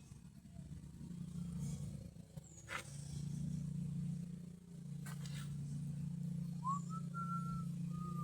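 A steady low hum with two sharp clicks, then, about two-thirds of the way in, a person begins whistling: a note that rises and is then held steady.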